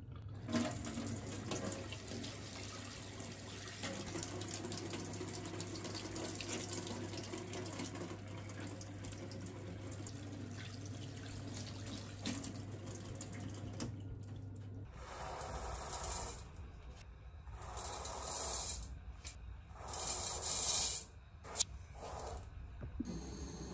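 Kitchen mixer tap running into a stainless-steel sink as hands are washed under the stream, then water splashing in several short, louder spurts.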